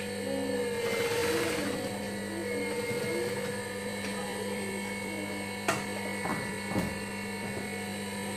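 Motor of a JUKI industrial sewing machine running with a steady hum, without any stitching rhythm. Two sharp clicks come about two-thirds of the way through.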